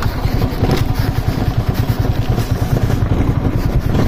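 TVS Apache RTR 200's single-cylinder engine running as the motorcycle rides downhill over a rough, stony dirt track, with rattling from the bumpy ground.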